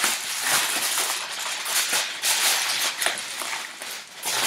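Aluminium foil crinkling and rustling as it is folded and pressed over a baking tray by hand, a dense crackle that eases off briefly near the end.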